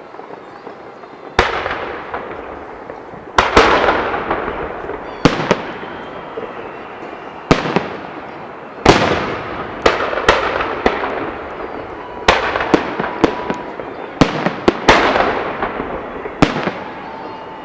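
Festive fireworks salute: aerial shells bursting in irregular succession, a dozen or more sharp bangs, each trailing off in a crackling, echoing decay. The first bang comes about a second and a half in.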